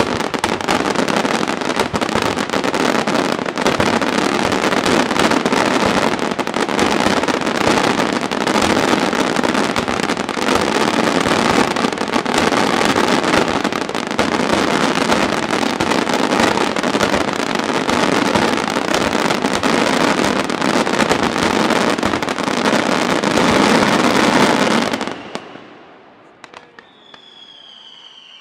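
Daytime fireworks barrage: a dense, unbroken run of rapid bangs and crackling that stops abruptly about 25 seconds in, the closing barrage of the show. A faint high whistle follows near the end.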